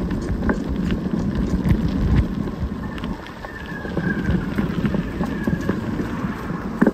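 Wind noise on a handlebar-mounted phone's microphone while riding a bicycle, with small knocks and rattles from the bike and its loose phone holder over the rough path. It dips quieter for a moment about three seconds in.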